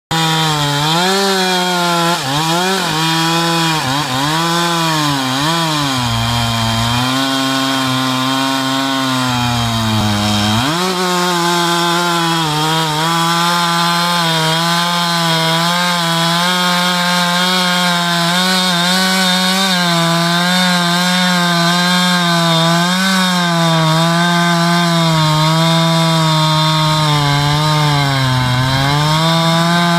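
New Husqvarna 372XP two-stroke chainsaw at full throttle, its chain cutting through a 30-inch oak log. The engine pitch wavers up and down under load for the first ten seconds, dips briefly about ten seconds in, then runs fairly steady.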